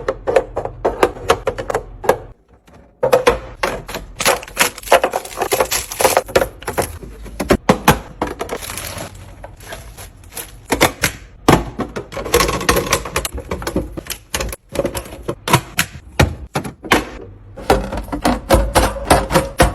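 Rapid clicks, clacks and knocks as containers, lids and packaged food are handled and set down during fridge restocking. There is a short break about two seconds in and a brief hiss near the middle.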